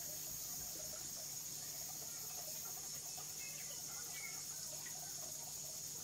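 Quiet outdoor ambience: a steady high hiss and a low hum, with a couple of faint short chirps about three and four seconds in.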